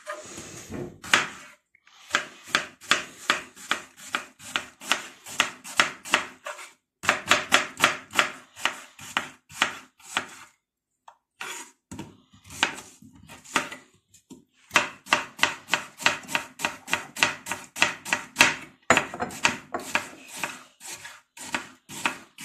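Kitchen knife chopping onion on a cutting board: quick, even knocks of the blade on the board, about four a second, in runs with a couple of short pauses.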